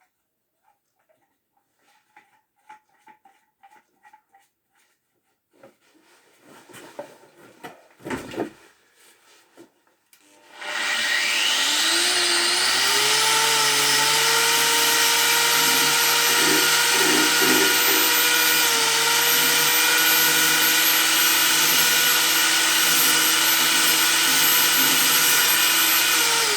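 Kraft electric angle grinder handled with small clicks and knocks, then switched on about ten seconds in: its motor whines up to speed and runs steadily at full speed, a bit loud.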